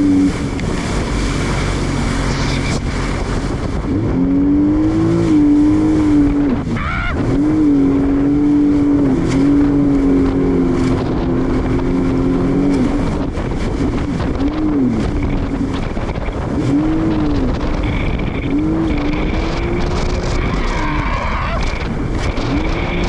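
Jet ski engine running hard over a rush of wind and water noise. Its pitch holds fairly steady at first, then swings up and down in short swells several times in the second half.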